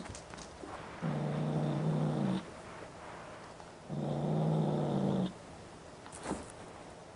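Kitten growling around a toy held in its mouth: two drawn-out, low, steady growls about a second and a half apart. A short knock near the end.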